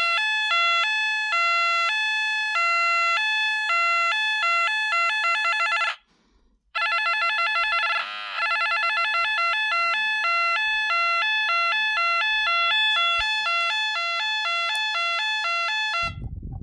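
Clifford & Snell YO3 Yodalarm electronic sounder giving a two-tone alternating alarm through its loudspeaker. It cuts out for under a second about six seconds in and comes back with faster alternation. Around eight seconds the pitch swoops as one of the board's trimmer pots is turned with a screwdriver. A low thump sounds near the end.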